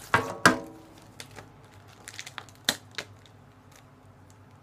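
Packaging being torn open and handled: two loud sharp crackles near the start, then scattered lighter crinkles and clicks as the contents are pulled out.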